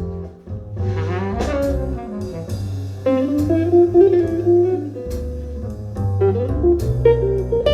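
Instrumental music played back through Audio Note AN-J-LX loudspeakers driven by an Audio Note Cobra push-pull valve amplifier, recorded in a small room: a steady bass line under a melody line that bends in pitch about a second in, then holds longer notes.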